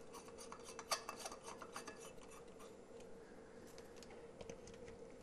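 Light bulb being screwed into a lamp socket by hand: faint scraping and small clicks of the bulb's base turning in the threads, with one sharper click about a second in.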